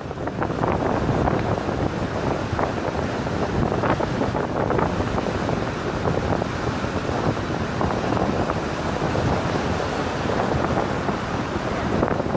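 Surf breaking and washing up over a pebble beach, with wind buffeting the microphone in a steady low rumble.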